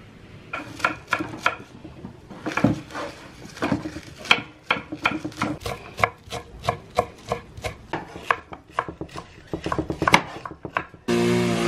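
Kitchen knife chopping on a wooden cutting board in quick, irregular strokes, shredding cabbage and then cutting quince. Near the end a small engine, a string trimmer, abruptly starts up loud and steady.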